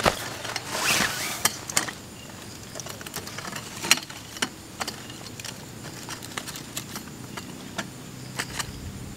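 Tent poles being handled and fitted together, giving scattered sharp clicks and knocks, with a rustling swish of tent fabric or dry leaves about a second in.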